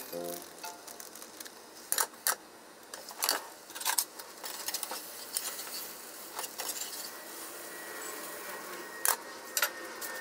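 Hotcake-mix bag crinkling and rustling as the powder is poured into a glass bowl, with a few sharp crackles of the packaging.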